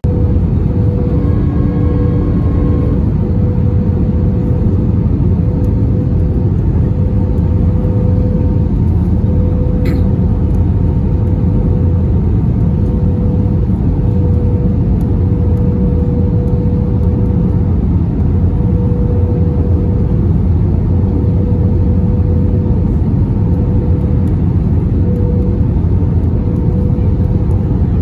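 Steady cabin noise inside an Airbus A321 in flight, with the wing's flaps extended: a loud, even rush of engines and airflow with a steady hum. A brief higher tone sounds about a second in.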